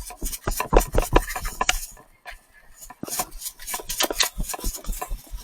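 A run of sharp, irregular clicks and knocks, clattering at an uneven pace, which pauses briefly about two seconds in and then starts again.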